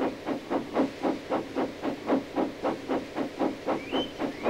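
Steam locomotive puffing steadily as it pulls away, about four chuffs a second over a steady hiss, with two short rising squeaks near the end.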